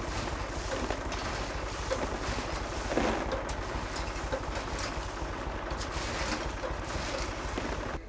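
Hazelnuts clattering in a quick run of small clicks as they are raked out of a nut harvester's outlet into a plastic tub, with a louder rush of nuts about three seconds in. A steady mechanical running noise lies underneath throughout.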